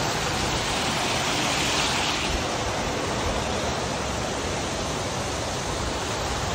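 Water rushing and splashing steadily as it pours from inlet spouts and over weirs into the concrete raceways of a trout farm, a little hissier about a second or two in.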